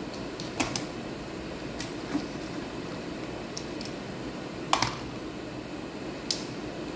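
Steady hum of operating-room ventilation and equipment, with a handful of sharp plastic clicks as a surgical instrument and the camera are taken out of the surgical robot's arms. The loudest is a double click nearly five seconds in.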